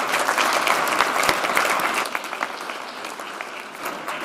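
Audience applauding a guest speaker onto the stage. The clapping is strongest in the first two seconds, then thins out and quietens.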